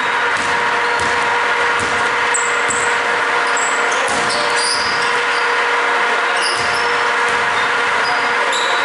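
Basketball game sounds in a gym: sneakers squeaking in short high chirps on the hardwood floor and a basketball being dribbled, over a steady hiss and hum.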